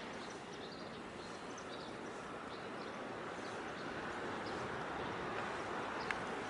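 Steady outdoor harbour ambience, a wide even noise, with scattered faint short high chirps and one sharp click about six seconds in.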